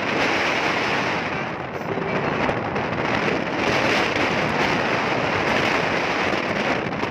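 Strong wind blowing across the microphone: a steady, loud rushing and buffeting noise.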